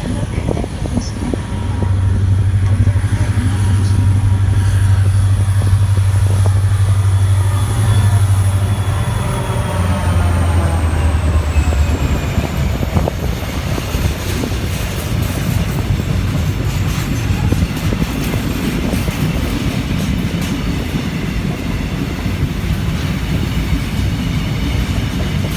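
A Korail 7500-class diesel locomotive passes close by, its low engine drone and a high whine both dropping in pitch as it goes past. It is followed by a steady rumble and clatter of freight wagons rolling by on the rails.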